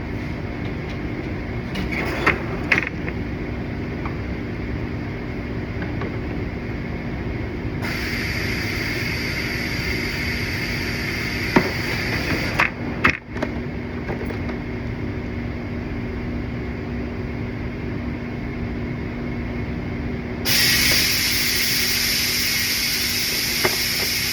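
A steady low hum with a held tone, broken twice by a long hissing like a spray or air jet, the second stretch louder. A few sharp clicks and knocks of parts being handled come in between.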